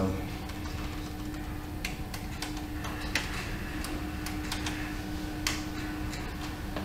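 Keys tapped on a MacBook keyboard: scattered, irregular clicks as text is typed, over a steady hum.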